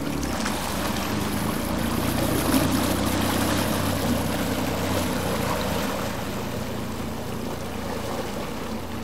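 Tohatsu 30 hp outboard on a GT30 racing powerboat running steadily at low speed, with water churning behind the hull. It is loudest a couple of seconds in and fades slowly as the boat moves away.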